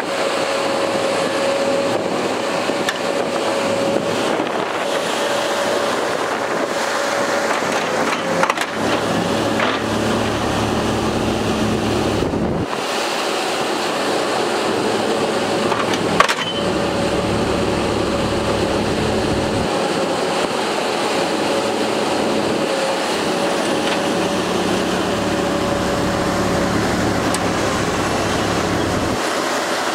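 Ponsse Bear forestry harvester running, its engine and hydraulics working as the boom and harvester head are moved. A steady tone runs through it, deeper load sounds come and go several times, and there is a sharp knock about sixteen seconds in.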